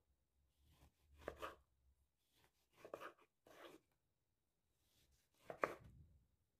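Chef's knife slicing through an orange onto a bamboo cutting board: about four separate cuts, the last, about five and a half seconds in, the loudest.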